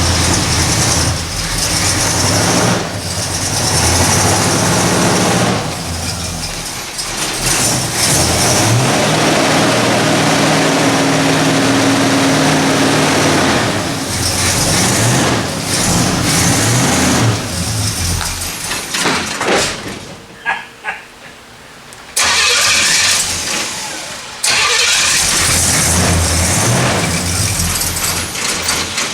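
Classic Pontiac V8 car engines running and revving as the cars are moved, with a brief quieter lull about two-thirds through.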